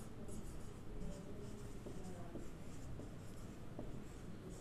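Marker pen writing on a whiteboard: a run of faint, short, irregular strokes.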